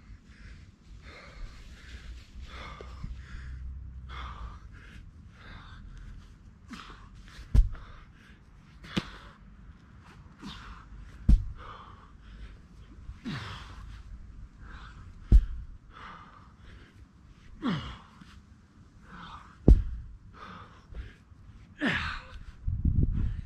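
A heavy exercise ball dropped onto the grass lawn again and again, landing with four heavy thuds about four seconds apart. Hard breathing and grunts from the exerciser come between the thuds.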